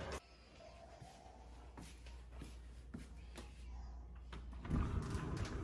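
A few faint clicks over a steady low room hum, then, a little before the end, a sliding door with a recessed metal pull rolling open in its track.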